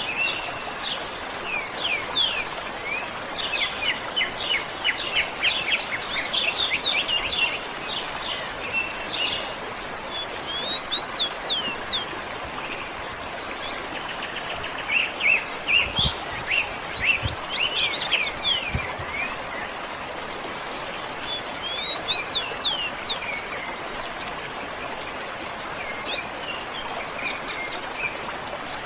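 Many small birds chirping and singing in quick, overlapping calls over the steady rush of a waterfall. The birdsong is busiest in the first half and again around the middle, and thins out near the end.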